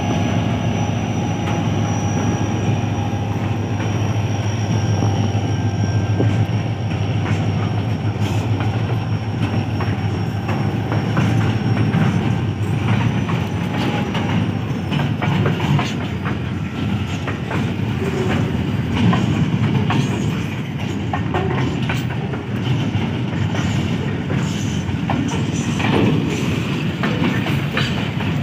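Goods train hauled by an HGMU-30 diesel-electric locomotive on the move. A steady engine drone with a high whine fills the first half, and from about halfway the clicking and knocking of the wagon wheels over the rail joints takes over.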